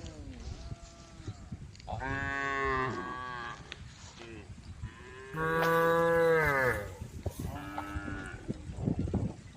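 Cattle mooing in a herd: several long, drawn-out moos one after another. The loudest comes a little past the middle, with fainter calls before and after it.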